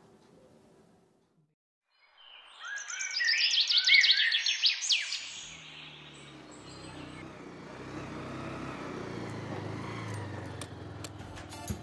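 Birds chirping in a quick flurry of high calls for about three seconds. Then a motorcycle engine runs and grows louder as the bike approaches.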